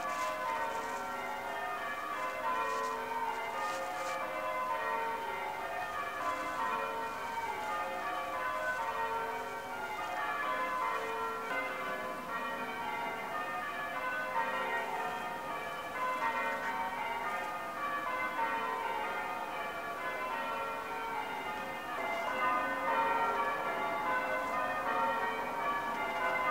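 Church bells ringing changes: a continuous stream of overlapping bell strikes.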